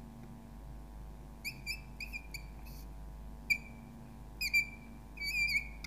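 Whiteboard marker squeaking against the board as figures are written: short, high-pitched squeaks in clusters of quick strokes, starting about a second and a half in.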